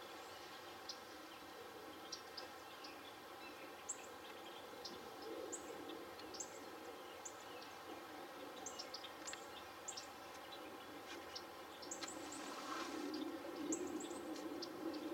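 Small birds chirping: many brief, high chirps scattered irregularly, over steady low background noise.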